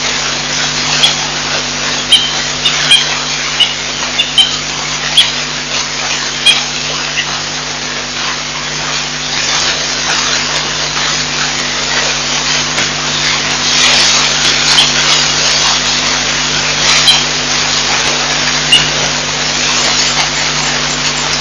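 Baboons handling a wildlife camera rig: irregular knocks, taps and clicks, thickest in the first several seconds and scattered after, over a steady hiss and low hum.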